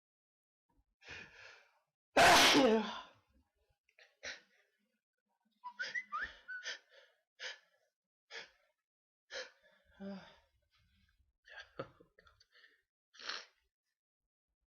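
A person sneezes once, loudly, about two seconds in, with a breathy intake just before it. Then comes a string of short breathy noises, a couple of them with a brief whistling note.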